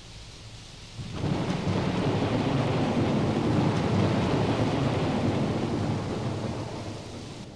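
A thunderclap rolling into a long, deep rumble of thunder over the hiss of rain. The thunder breaks suddenly about a second in, stays loud for several seconds, then fades away near the end.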